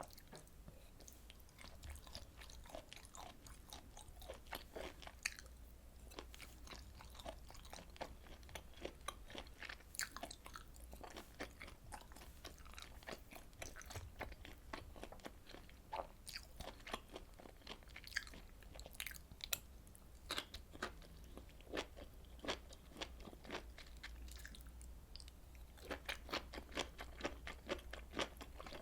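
Chewing of grilled beef intestine and tripe: a steady run of short wet clicks and smacks, coming thicker and louder near the end.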